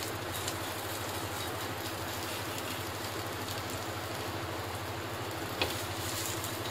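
Potato rolls shallow-frying in oil on a nonstick tawa, giving a steady sizzling hiss over a low steady hum, with one light tap near the end.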